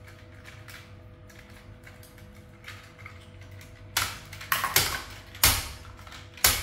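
Plastic Paw Patrol toy vehicle being handled and snapped together: faint fiddling at first, then about five sharp plastic clicks and clatters in the last two and a half seconds.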